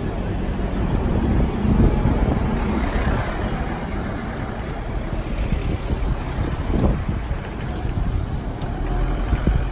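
New Routemaster double-decker bus pulling away and driving past, its diesel-electric hybrid drivetrain giving a low rumble that is loudest a couple of seconds in. A van then goes by in steady city traffic.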